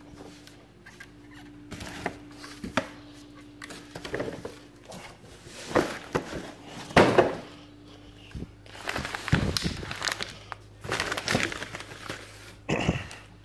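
Cardboard packaging being handled and opened, with irregular thumps, scrapes and rustling, louder bursts in the second half, over a steady low hum.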